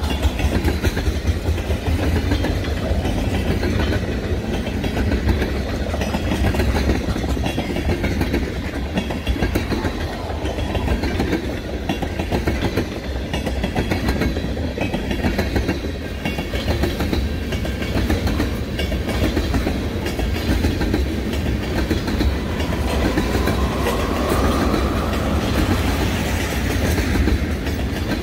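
Heavily loaded freight cars (tank cars and covered hoppers) rolling past, a steady rumble with wheels clacking over the rail joints. A faint squeal rises briefly about three-quarters of the way through.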